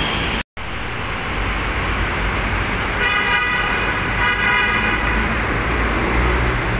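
Road traffic passing, with a vehicle horn honking twice, each blast a little under a second long, about three and four seconds in. A low diesel engine rumble builds as a heavy flatbed truck drives past near the end.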